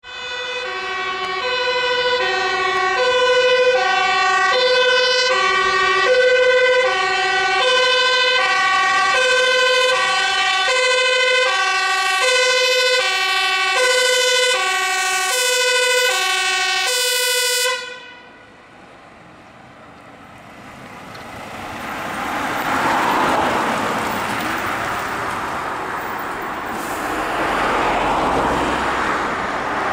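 Fire tanker's two-tone siren sounding a steady high–low alternation, about one high-low pair a second, until it is switched off abruptly about 18 seconds in. The truck's engine and tyre noise then swell as it drives past.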